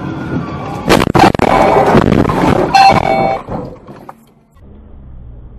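Car collision heard through a dashcam microphone: two sharp crash impacts about a second in, followed by about two seconds of loud crunching and scraping. A car horn sounds briefly near the end of the crash, then the noise drops away to quieter road noise.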